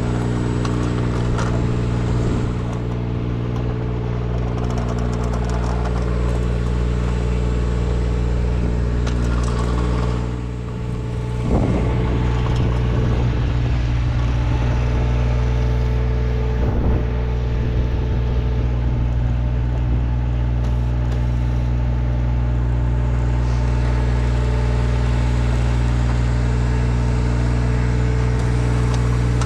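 An engine running steadily at an even idle, with a brief drop in level about ten seconds in before it comes back up.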